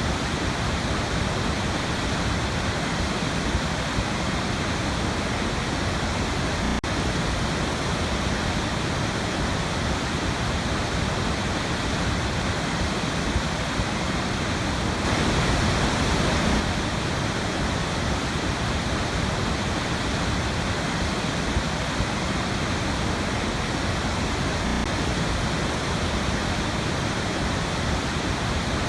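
Waterfall on a river: water pouring steadily in an even, unbroken rush, swelling slightly for a second or two past the middle.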